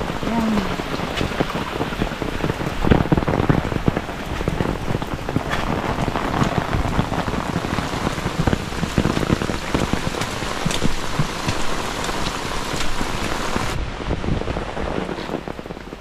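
Heavy rain from a sudden summer downpour pouring down, with many sharp individual drop hits. About fourteen seconds in the sound turns duller and a little quieter.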